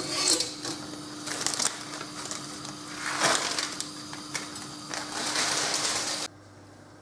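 Plastic noodle bag crinkling and rustling in several bursts as a block of dried egg noodles is tipped out of it into a saucepan of water, over a steady low hum. The sound cuts off suddenly about six seconds in.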